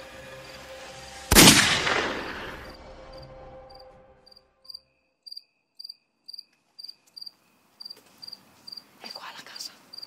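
A loud sudden crash about a second in, which dies away over a couple of seconds and cuts off a low drone. Then crickets chirping in short, evenly repeated pulses, two or three a second.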